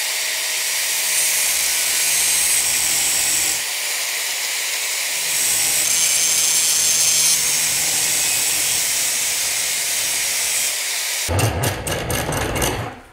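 Handheld angle grinder with an abrasive disc grinding the steel head of a hatchet clamped in a vise: a steady hissing grind with a high whine, the disc cutting the head back to reshape it. It stops about eleven seconds in, followed by a second or so of short knocks and clatters.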